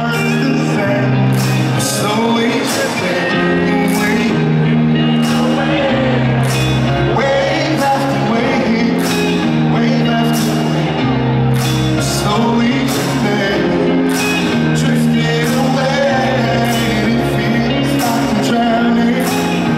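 Live electronic dance music: a male vocalist sings over held synth chords and a bass line that changes notes every couple of seconds, with repeated hiss-like cymbal strokes on top.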